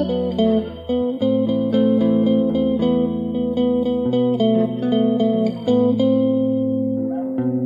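Stratocaster-style electric guitar playing an improvised lead in A minor, single notes picked over a looped backing of A5, D5 and E5 power chords. The backing changes chord about every second and a half.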